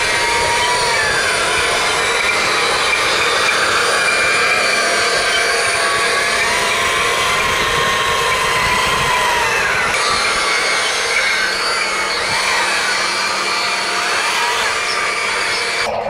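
Small electric motors of a radio-controlled excavator and wheel loader whining as they are worked, several tones gliding up and down in pitch over a steady whirr.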